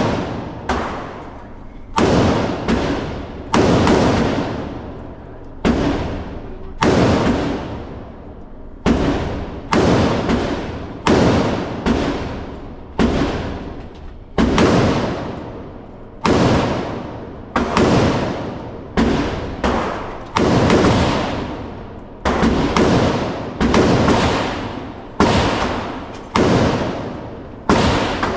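Gunshots at a shooting range, about twenty in all, fired unevenly every second or two, each with a long echoing tail.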